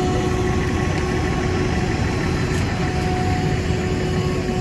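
Fire engine's motor running steadily with a constant whine, over the noise of a car burning fully alight.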